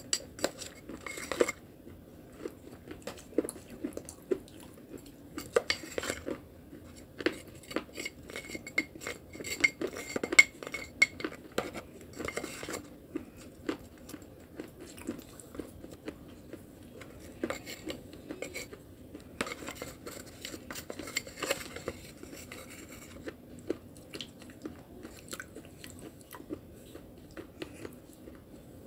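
A spoon scraping, stirring and clicking against the sides of a clear container of thick wet clay paste: irregular clinks and scrapes, busiest in the first half and again about two-thirds of the way through.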